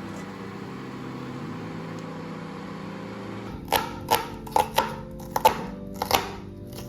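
Soft background music with a hiss through the first half, then a quick run of about seven sharp knocks or taps in the second half.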